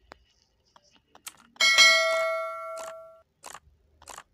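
A single metallic clang about one and a half seconds in that rings out for over a second, among light clicks and knocks of hand tools working on the engine.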